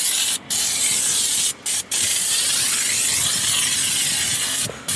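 Hissing spray of coconut oil being sprayed into an excavator's engine compartment. It comes in long bursts, with brief stops about half a second in, twice around a second and a half to two seconds, and near the end.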